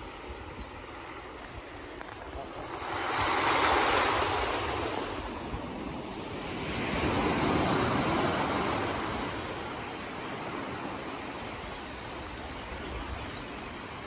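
Ocean surf breaking on the shore, rising in two surges of wave noise about three and seven seconds in, then settling to a steady wash.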